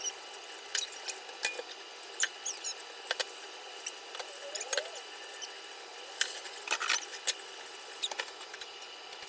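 Scattered light clicks, knocks and short squeaks of hands handling things at a kitchen sink, over a steady faint hiss.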